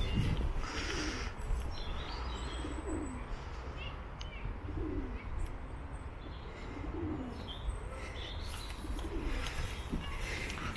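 Pigeons cooing, a short low bending note every second or two, with small birds chirping now and then over a steady low rumble.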